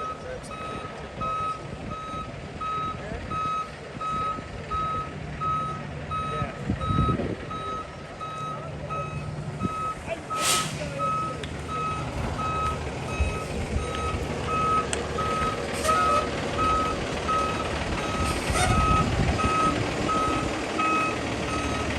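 Concrete mixer truck backing up: its reversing alarm beeps steadily, about one and a half beeps a second, over the truck's engine running. A few short hisses of air cut in about halfway through and again later.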